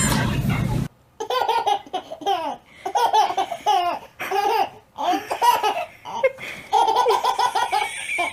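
Baby laughing in repeated short bursts of giggles, starting about a second in.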